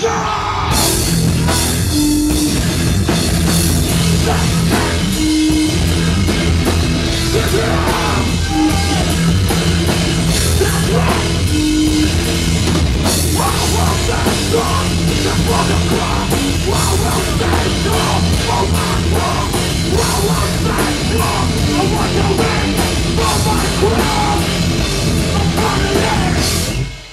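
Hardcore punk band playing live: distorted electric guitar and bass, a pounding drum kit and shouted vocals, loud and dense. The band comes in sharply at the start and stops abruptly near the end.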